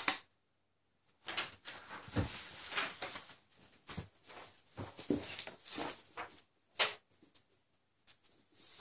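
A sharp click as a button on a small player is pressed and the spoken recording stops, then bedsheets rustling and a few soft thumps as someone gets up and steps off a bed.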